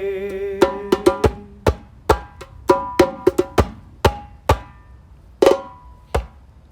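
Close of a church worship song: the last sung "hallelujah" note dies away, then a string of percussion strikes with a few ringing pitched notes ends the song, stopping about six seconds in.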